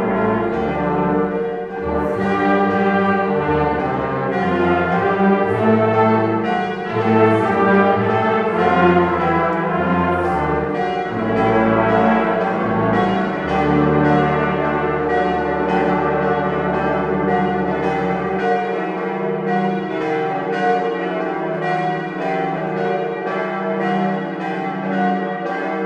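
Church brass choir (trombones, trumpets, horns) playing a hymn while church bells ring with it. The deepest brass notes fall away about two-thirds of the way in, and the bells carry on with the higher tones.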